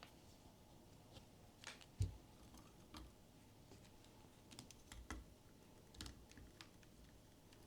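Scattered soft taps and clicks of hands handling a blind-box figure and its packaging, with a few dull thumps, the loudest about two seconds in.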